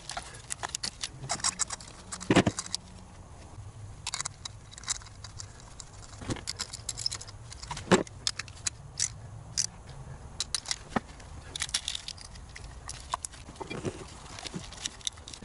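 Irregular clicks and clatter of hand tools and plastic ignition-coil parts being handled on top of an engine, in sped-up footage.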